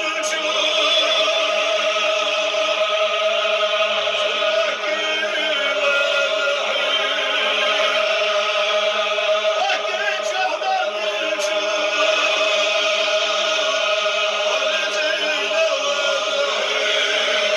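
A group of men chanting together in unison, a steady, unbroken chant of long held notes, as in a Chechen Sufi zikr circle.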